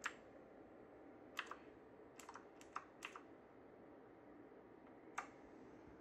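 Keys of a Havit HV-KB378L mechanical keyboard clicking as they are pressed one at a time to change the backlight colour: a click at the start, a quick run of about seven between one and a half and three seconds in, and one more about five seconds in, over faint hiss.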